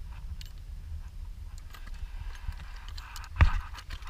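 A redfish landing on a boat deck with a single sudden thump about three and a half seconds in, as it is laid down for measuring. Scattered light clicks and knocks of handling come before it, over a steady low rumble.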